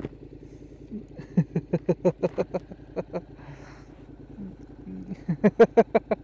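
A man laughing in two bouts of quick, evenly repeated 'ha-ha' pulses, over the low steady running of the motorcycle's idling engine.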